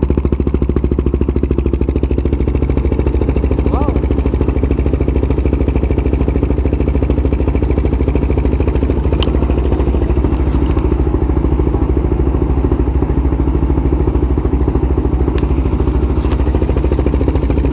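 CF Moto 300SR's single-cylinder engine running steadily at idle, a dense even exhaust pulse with no revving.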